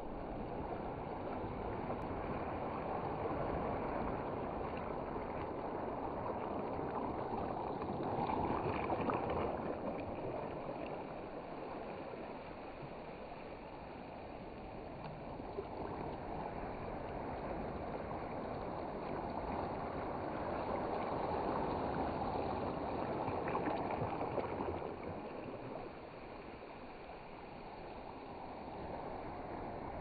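Small waves washing over a shell and pebble shore right at the waterline: a steady wash of water that swells and eases, louder about eight seconds in and again past twenty seconds.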